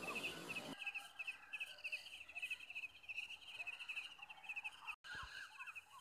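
Insects chirring in a steady fast pulse, the loudest sound throughout, with faint short bird chirps scattered over it. The background hiss stops under a second in, and the sound cuts out briefly about five seconds in.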